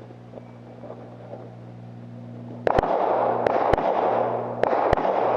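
Pistol fire at a shooting stage, beginning about two and a half seconds in: around seven sharp shots, some in quick pairs, over a loud rushing noise.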